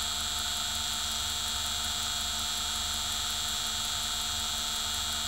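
Brushless DC servo motor belt-driving an 8mm Geneva-style watchmaker's lathe, running at a steady speed with an even hum and a high whine.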